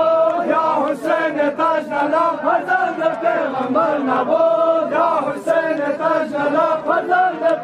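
A crowd of men chanting a Farsi noha, a Shia mourning lament, with the voices rising and falling in a continuous sung line.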